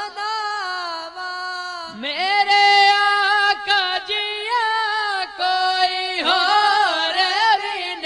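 Young male voices singing a devotional kalam without instruments, long held notes with ornamented turns and a short break for breath about two seconds in.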